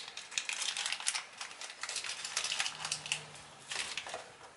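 Small metal hardware for a hood gas strut, ball studs and blind nuts, being handled and turned in the hands, making a quick irregular run of clicks and rattles.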